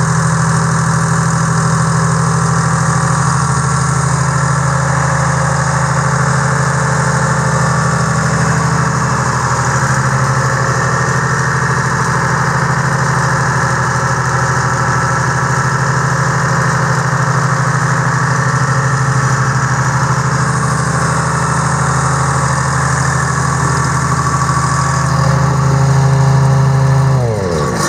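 Detroit Diesel 6V53 two-stroke V6 diesel running at a steady speed. Near the end its note swells briefly, then it is shut down and the engine speed falls away.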